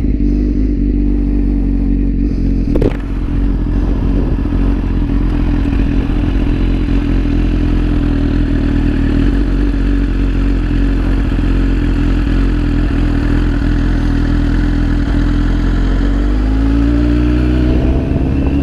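BMW S1000RR inline-four engine running at steady low revs while the bike rolls slowly, with wind and road noise. A single sharp click comes about three seconds in. Near the end the engine pitch climbs as the bike accelerates.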